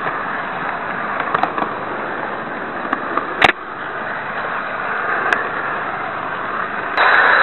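Model train running, heard through a micro camera riding on board: a steady rushing noise with scattered clicks and crackles, one sharp click about three and a half seconds in, and the noise growing louder just before the end.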